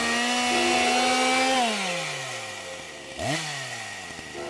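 Two-stroke chainsaw revving. It holds high throttle for about a second and a half, falls back toward idle, then is revved up again briefly and drops off.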